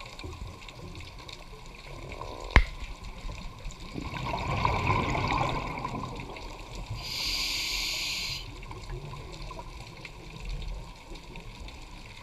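Scuba diver breathing through a regulator underwater: a bubbling rush of exhaled air about four seconds in, then the hiss of an inhale through the regulator a few seconds later, with one sharp click before them.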